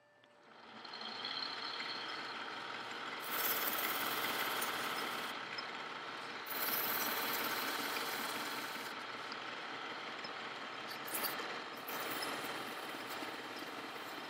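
A metal lathe spins up over about a second and runs steadily, turning an electric motor's armature. Abrasive cloth is pressed against the spinning copper commutator in three stretches, each adding a loud hissing scrape over the running lathe. This is cleaning or polishing the commutator.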